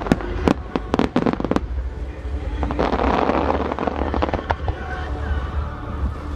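Star mine fireworks: a rapid run of sharp shell bursts in the first second and a half, then a dense crackling of glittering stars in the middle, with a few scattered bangs after.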